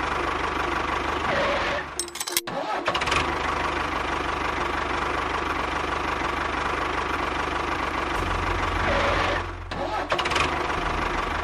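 Tractor engine running steadily, with a brief cut-out about two seconds in and a short dip near the end.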